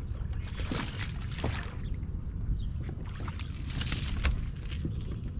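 Lake water sloshing and slapping against a plastic kayak hull in small bursts, over a steady low wind rumble on the microphone.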